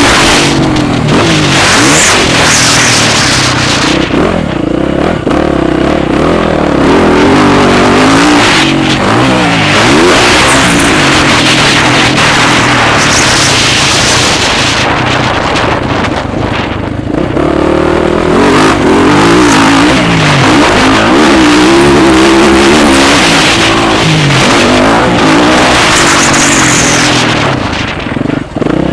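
Motocross bike engines revving hard and easing off again and again, the pitch climbing and dropping with throttle and gear changes.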